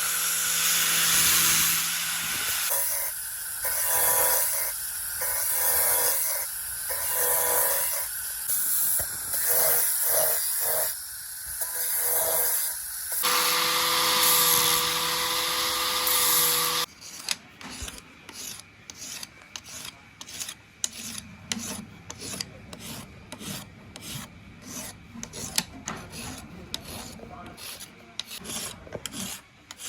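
A small electric tool runs on the pocket knife with a steady whine that pulses about once a second, then cuts off suddenly a little past halfway. Quick, even hand strokes of an abrasive rubbing on the metal follow, two to three a second.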